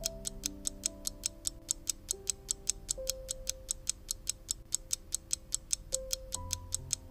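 Clock-like ticking sound effect, about four even ticks a second, counting down a quiz answer timer, over soft background music with slow held notes.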